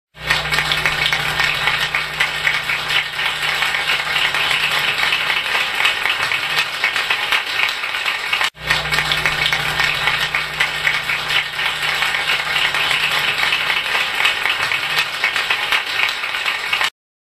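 Crowd applause, a dense steady clapping that cuts out for an instant about halfway through and then starts over the same way, as if one applause clip were played twice.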